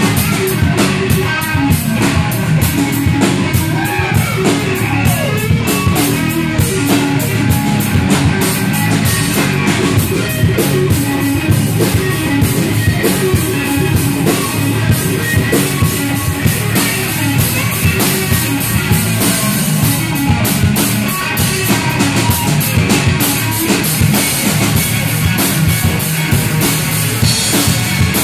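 Live rock band: a Stratocaster-style electric guitar plays lead lines with bending notes over a drum kit played steadily.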